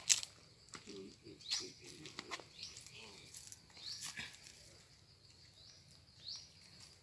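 A baby macaque's short, high squeaks, each rising in pitch, come every second or two, with a few low grunts about a second in. Dry leaves crunch and rustle underfoot.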